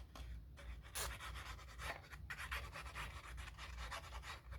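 Fine-tip applicator of a liquid glue bottle scratching and tapping across cardstock as glue is squeezed out. It comes as a dense run of quick, faint scratchy ticks starting about a second in.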